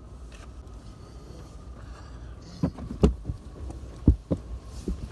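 A dog clambering into an SUV's cargo area: several dull thumps and knocks in the second half, the two loudest about a second apart, over a low steady rumble.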